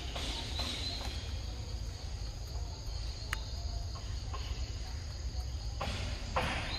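Steady high insect chorus of forest crickets or cicadas over a low rumble, with brief rustling near the start and again near the end and a single sharp click about three and a half seconds in.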